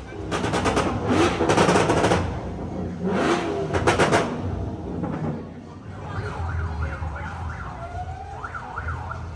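A vehicle engine revved hard twice, the first rev about two seconds long and the second about a second. After that, fainter short rising and falling tones sound over a low rumble.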